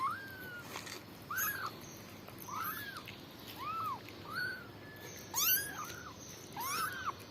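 Kittens meowing: a run of about seven short, high mews, roughly one a second.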